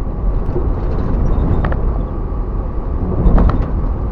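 1977 Jeep Cherokee driving on a gravel road: a steady low engine and road rumble, with a few short clicks or rattles about two seconds in and again near three and a half seconds.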